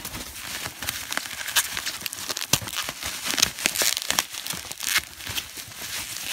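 Bubble wrap around a bottle crinkling and crackling as it is handled and pulled out of a cardboard shipping box, with foam packing peanuts rustling. A dense run of irregular crackles and clicks.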